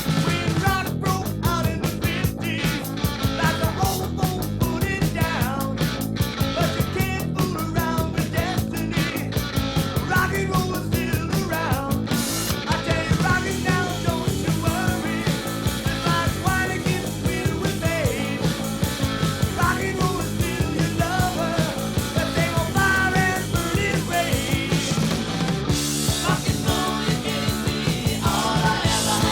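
Rock music by a three-piece band of drums, electric bass and guitar playing a driving beat, with melodic lines over it. The sharp high drum strokes thin out about twelve seconds in.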